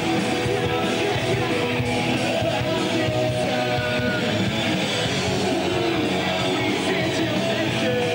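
Live rock band playing: guitars, bass and drums, with a little singing, in a steady dense mix.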